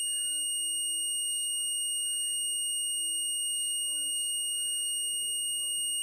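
Electronic buzzer of a thermostat-triggered SCR fire alarm circuit sounding one continuous, steady high-pitched tone. The SCR is conducting because the heated thermostat has closed, so the alarm is in its triggered state.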